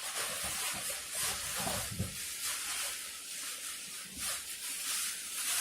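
Rustling and handling noise as a garment is unpacked and taken out, a crinkly hiss that swells and fades, with a few soft knocks.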